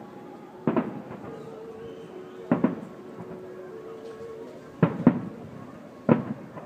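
Aerial fireworks shells bursting: five sharp bangs, two of them close together about five seconds in, each trailing off in echo. A faint steady tone hangs in the background between the first few bangs.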